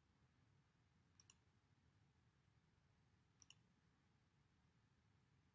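Near silence with two faint computer mouse clicks, one about a second in and one about three and a half seconds in, each a quick double tick.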